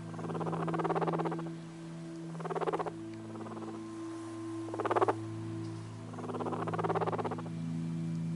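Guinea pig purring in four short buzzy bouts of rapid pulses, each under about a second and a half, with gaps between, over a steady low hum.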